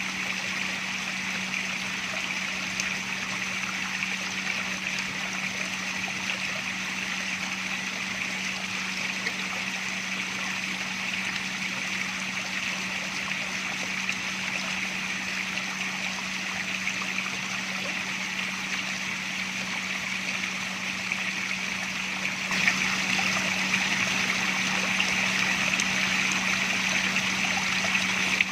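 Water flowing and trickling steadily, with a steady low hum underneath. It gets noticeably louder about 22 seconds in.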